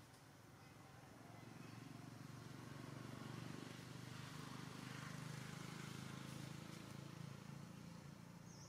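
A faint, low engine rumble, like a motor vehicle passing at a distance, that swells over the first few seconds and slowly fades.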